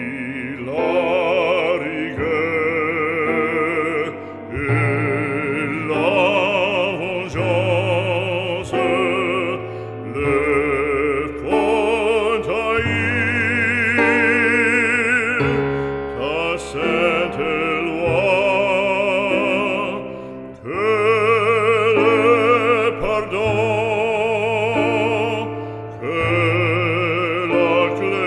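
Background music: an operatic voice singing long notes with strong vibrato over instrumental accompaniment.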